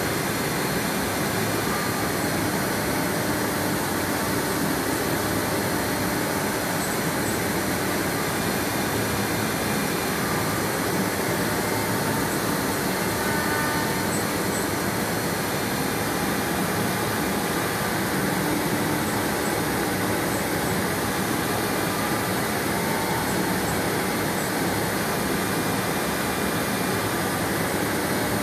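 CNC router spindle running and cutting an aluminum composite (Alupanel) sheet, with its dust extraction drawing air through the hose. The result is a steady, unbroken machine noise.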